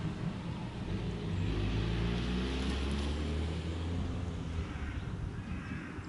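An engine running, a low steady hum with overtones that grows louder about a second and a half in and fades after about four seconds.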